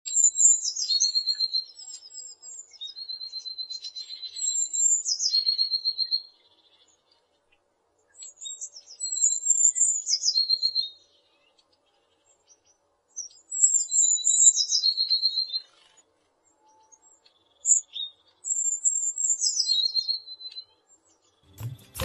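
A small songbird singing: high, thin phrases that drop from a higher note into a fast trill, repeated about five times with short pauses between them.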